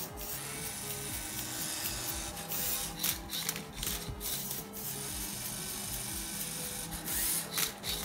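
A Lego EV3 Rubik's cube–solving robot turning and flipping a cube, its motors whirring, with clacks from the plastic cube and Lego parts, under background music with a steady melody.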